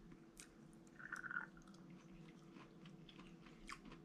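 Faint chewing of a mouthful of raw koi (carp), a crunchy fish, with scattered soft mouth clicks.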